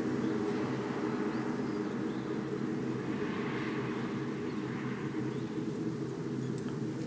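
A steady low droning hum with faint bird chirps over it.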